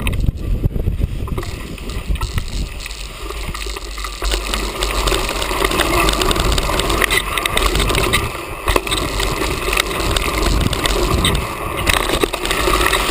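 Mountain bike riding fast down a dirt forest trail, heard from a camera on the bike or rider: wind rumbling on the microphone and tyre noise, with frequent knocks and rattles as the bike runs over bumps.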